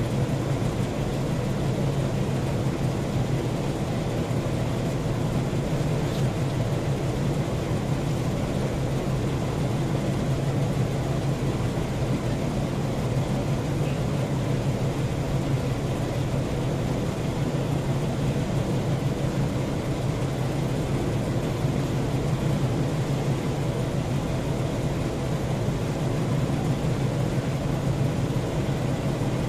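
A steady low mechanical drone that runs on without change.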